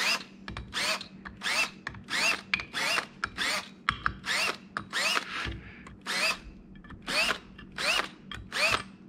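Yellow DeWalt cordless drill run in short trigger pulses, about two a second, each a brief whine rising in pitch as the motor spins up, while it takes the sharp edges off the holes in a machined metal plate.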